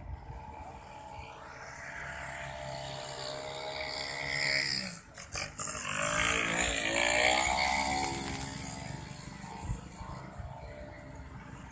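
A motor vehicle approaching, passing close by and fading away. Its engine note breaks off briefly about five seconds in, then rises again, is loudest a couple of seconds later and falls away as it goes.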